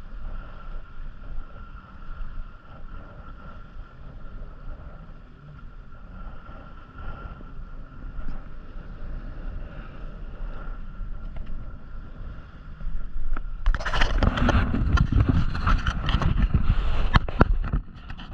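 Kayak on open water: a low, even wash of wind and water with a faint steady whine. About 14 seconds in, a loud stretch of rustling, knocks and splashing sets in and lasts about four seconds.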